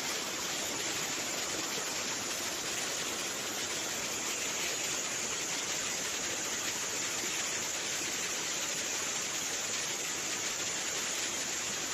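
Steady rushing water noise, even and unbroken, with no change in level throughout.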